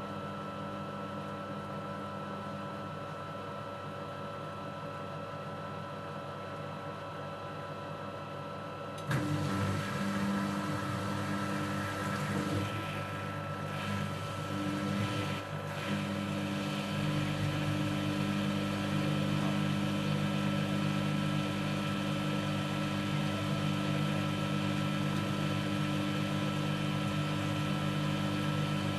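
Zanussi washing machine running with a steady motor hum. About nine seconds in, the motor jumps up in speed and level, wavers for several seconds, then settles into a steady, louder hum.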